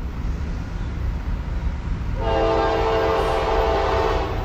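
Air horn of an approaching Norfolk Southern GE AC44C6M freight locomotive sounding one long blast, a steady chord of several notes, starting about two seconds in and lasting about two seconds, over a low steady rumble.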